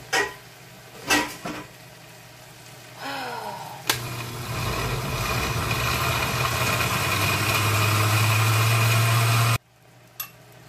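A few knocks, then a countertop blender runs for about five and a half seconds, puréeing soaked guajillo chiles and tomato with water. Its motor hum deepens and grows louder near the end before it stops suddenly.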